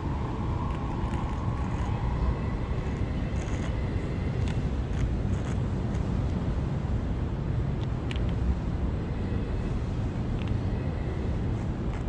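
Steady rumble of street traffic, with a few faint ticks over it.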